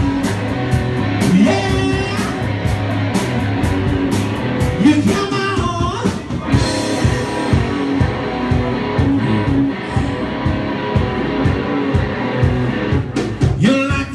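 Live rock band playing in a bar: electric guitar and a singer over a steady beat.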